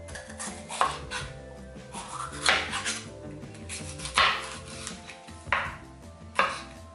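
Chef's knife slicing through a red bell pepper and knocking on the cutting board: five cuts about a second or more apart.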